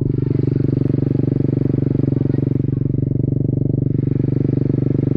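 Small single-cylinder minibike engine idling steadily close by, a fast even putter with no revving.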